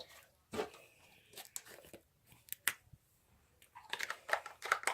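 Slime being pulled apart and handled along with its plastic container: scattered crackles and tearing sounds with small sharp clicks, growing busier near the end.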